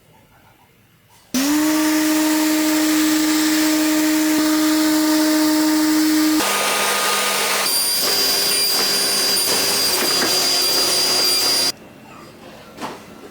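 A high-speed electric power-tool motor starts, whines up to speed and runs steadily with a loud rush. The sound changes abruptly twice, then cuts off suddenly near the end.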